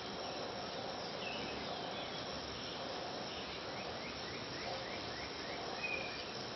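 Steady chorus of insects trilling. About four seconds in, a quick run of short, sliding bird notes joins it.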